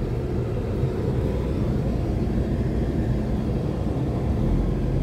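Car engine and tyre noise heard from inside the cabin: a steady low rumble.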